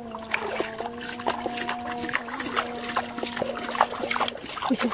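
Water splashing and sloshing as hands grab and scoop in shallow floodwater, with a fish pot being handled. A steady droning hum runs underneath and stops near the end.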